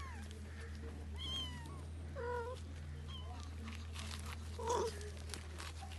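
Young kittens mewing: a few short, high-pitched cries, with lower cat calls about two seconds in and a louder one near the end, over a steady low hum.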